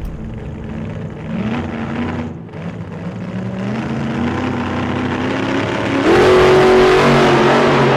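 Race car engines accelerating, their pitch climbing in steps, then much louder at high revs from about six seconds in.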